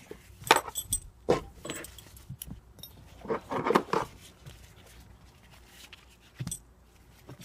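Metal fittings of a racing harness clinking and rattling as the nylon webbing is handled: a few scattered clicks, with a longer rattling stretch about three and a half seconds in.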